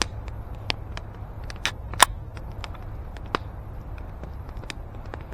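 Campfire crackling, with irregular sharp pops from the burning wood; the loudest pop comes about two seconds in.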